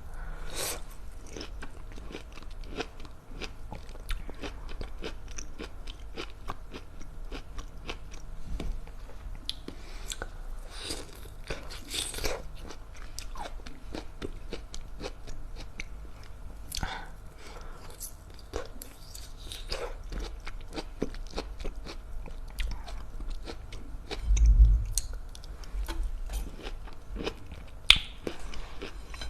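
Close-up sounds of a person biting and chewing tangerine segments with the mouth: many quick, irregular wet clicks and crackles. A low thump about 24 seconds in is the loudest sound.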